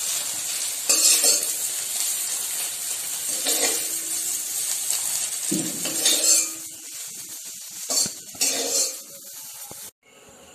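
Soya chunks sizzling in hot mustard oil in a steel kadai while a metal spoon scoops them out, scraping the pan and knocking against a glass bowl several times. The sizzle fades about two thirds of the way through as the pan empties.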